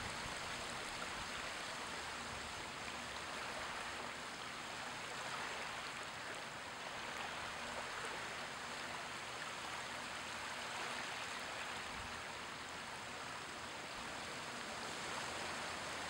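Small, gentle waves washing in over wet sand in shallow water at low tide, a steady, even hiss of water.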